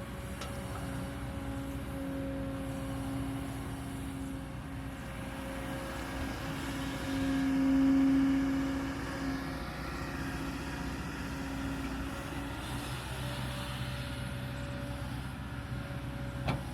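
Kobelco 220 excavator's diesel engine running steadily with a low hum, swelling louder for about two seconds halfway through. A single sharp click near the end.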